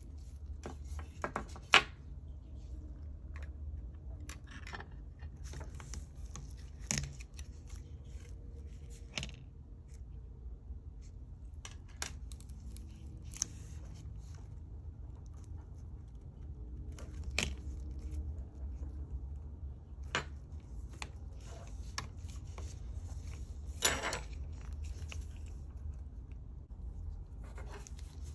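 Small tools and fingers clicking, tapping and scraping on the parts of an Apple iPod Classic as it is being taken apart, with a few sharper clicks, the loudest about two seconds in and near the end, over a steady low hum.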